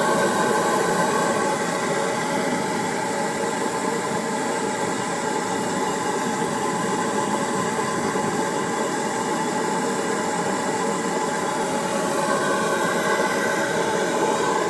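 Babington oil burner firing, a steady rush of noise with a few faint steady tones running through it.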